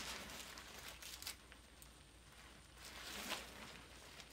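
Faint rustling of a nylon drawstring bag being handled, with a couple of soft clicks about a second in.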